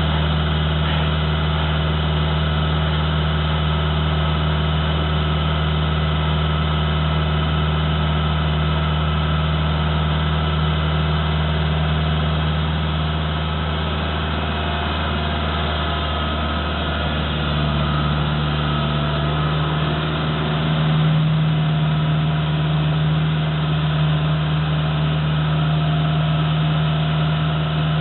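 Iseki TG5470 tractor's diesel engine running steadily at idle. It eases off slightly around the middle and comes back a little stronger a few seconds later.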